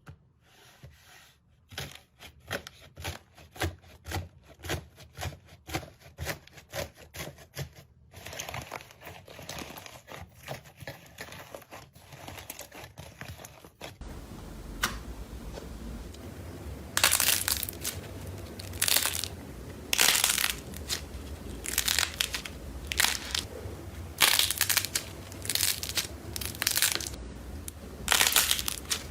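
Slime being worked by hand close to the microphone: a quick run of sharp sticky clicks and pops. About halfway it changes to louder crunching crackles, about one a second, as a crunchy slime is squeezed and pressed.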